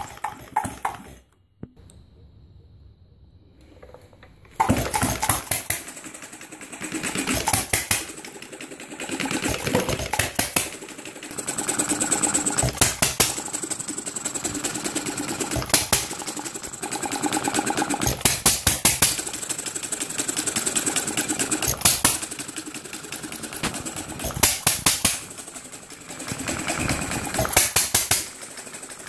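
Homemade inverted vertical, air-cooled hit-and-miss engine with a Briggs crankshaft and brass flywheels, running. It fires in short clusters of sharp bangs every two to three seconds and ticks quickly as it coasts between firings. There is about three seconds of quiet near the start.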